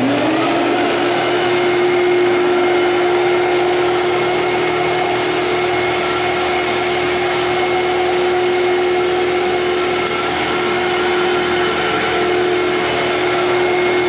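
Fantom Thunder upright vacuum cleaner just switched on: its motor whine rises briefly as it comes up to speed, then runs steadily as it is pushed over cat litter on carpet.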